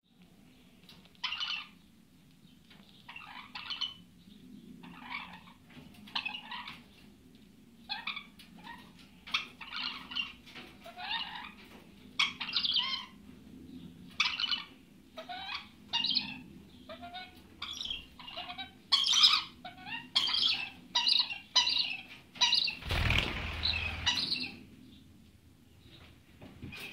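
A pair of Goldie's lorikeets making short, repeated squawking chirps while playing, some calls rising in pitch. Near the end a louder, rougher burst with a low thump stands out from the calls.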